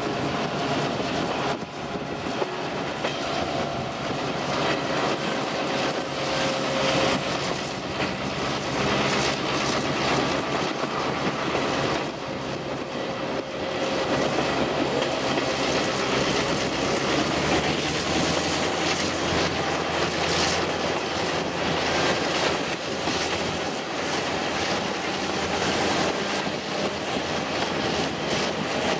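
Train running at speed behind a GM-built JŽ 661 'Kennedy' diesel locomotive, heard from an open window: wheels rumble and clack over rail joints, with a steady low drone underneath.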